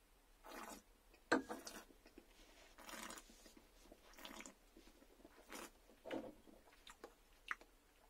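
Mouth noises of a person tasting a mouthful of cider: a string of short, faint slurps and smacks, with one sharp click about a second in.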